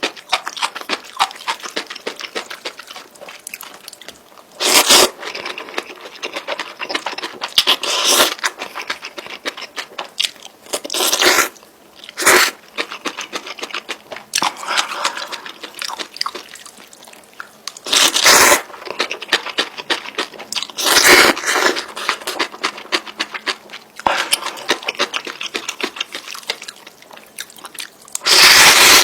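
Close-miked mukbang eating of spicy instant noodles: a constant run of fine, wet chewing clicks, broken about seven times by louder, noisy bursts lasting roughly half a second each.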